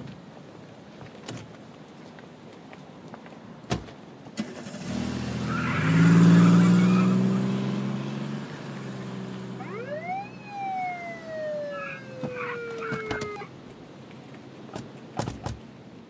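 A car engine revs up as the car pulls away and passes, loudest about six seconds in. A police siren follows: it rises sharply and then falls slowly. A few sharp knocks come near the end.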